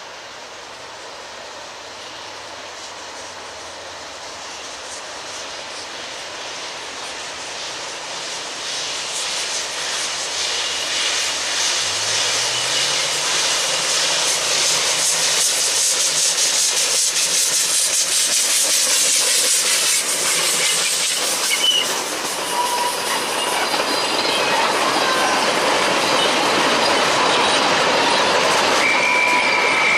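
Narrow-gauge steam train (Puffing Billy's NA-class 2-6-2T tank engine 12A) drawing nearer and growing steadily louder, steel wheels clattering over the rail joints. Near the end the wheel flanges squeal on the curve.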